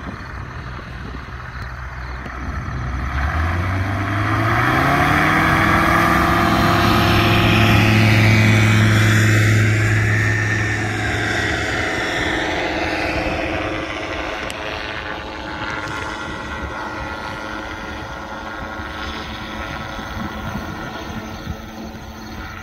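Ultralight tow plane's engine and propeller throttling up for an aerotow takeoff. The pitch rises about three seconds in, the engine runs loud at full power as the plane passes, then it fades as the plane climbs away.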